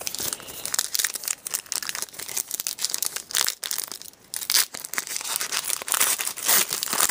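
A hockey card pack wrapper crinkling and tearing as it is opened, with the cards inside being handled and shuffled in the hands. The rustling and crackling is dense and uneven, easing off briefly about halfway through.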